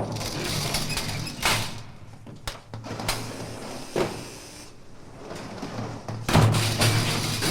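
A series of sharp knocks and bangs over a steady low hum, with the loudest cluster of bangs about six seconds in.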